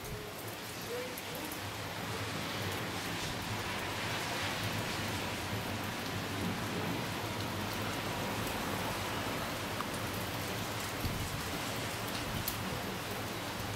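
Rain falling steadily during a thunderstorm, a constant even hiss.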